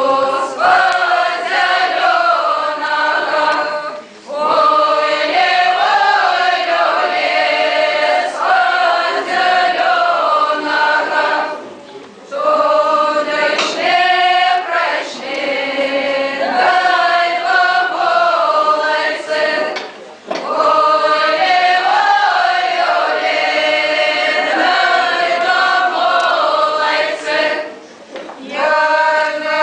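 Group of mixed male and female voices singing a Belarusian spring round-dance (karahod) folk song in chorus, unaccompanied. They sing in phrases of about eight seconds, with a short break for breath between them.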